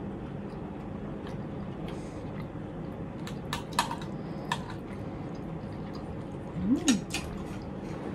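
Cutlery clicking against plates and bowls during a meal, a few sharp clicks a little past the middle, over a steady low hum. About seven seconds in there is a brief voice-like sound that rises and then falls in pitch.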